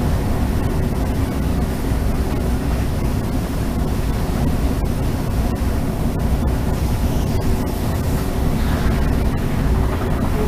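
Train running at about 120 km/h, heard from inside the driver's cab: a steady low rumble and rush with a faint constant hum.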